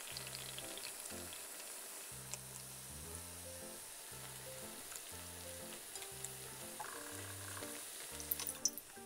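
Old-fashioned cake donuts deep-frying in hot oil: a steady sizzle with fine crackling. Near the end come a few light clinks as a wire skimmer and chopsticks lift the donuts out of the oil.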